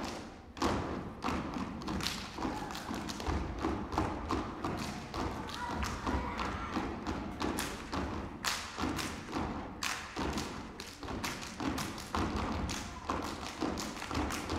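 Step team stepping: rhythmic stomps of feet on a wooden stage mixed with hand claps and body slaps, several sharp thuds a second.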